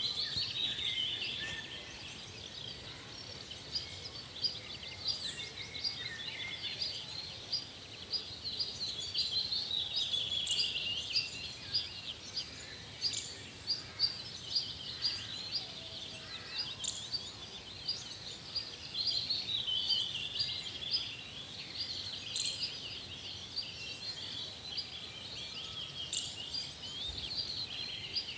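A dense chorus of small birds chirping and twittering, many quick high chirps overlapping without pause, over a faint steady background hiss.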